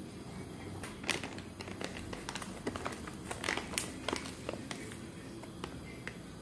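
A tea packet crinkling as it is handled, with a run of sharp little clicks and taps while a tea bag is dropped into a ceramic mug, starting about a second in and dying away near the end.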